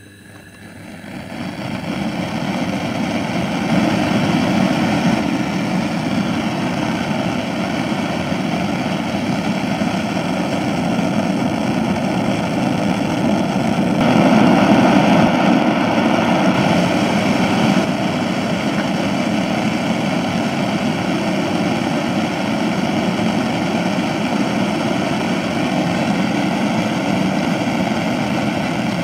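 Laboratory gas burner running with a strong flame: a steady rushing noise that swells over the first few seconds as the gas is turned up, and is louder for a few seconds about halfway through, while the metal sphere is held just above it.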